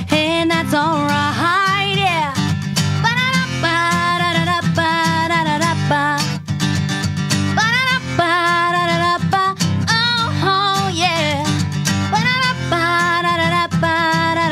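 A woman singing a country song, with long sliding and held notes, over an acoustic guitar.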